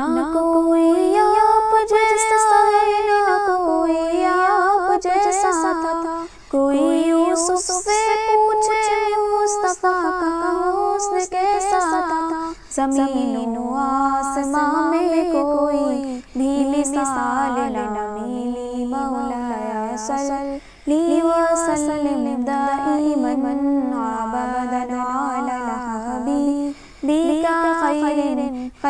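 A solo voice singing a devotional naat melody unaccompanied, in phrases of a few seconds with long, wavering held notes and brief breaks for breath.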